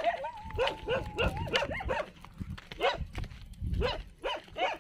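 A dog barking in quick series of short barks, several a second, with a brief pause about halfway. A thin high whine is held for about a second near the start.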